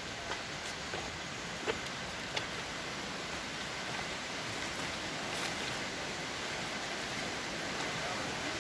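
Steady rushing of river water and a waterfall, growing slightly louder. A few footsteps on the trail sound in the first couple of seconds.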